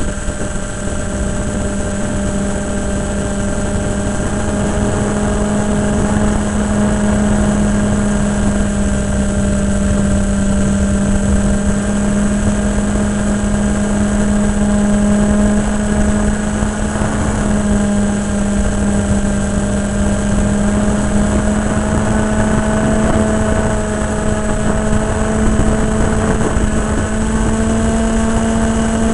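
Electric motor and propeller of an AXN Floater Jet RC foam plane in flight, heard from a camera on the airframe: a loud, steady drone with wind rush over the microphone, its pitch creeping up slightly in the last few seconds.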